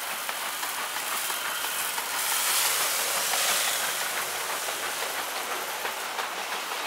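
Old wooden belt-driven threshing machine running and threshing straw: a steady whirring rush of the drum with straw and chaff rattling through, a little louder about two to three seconds in.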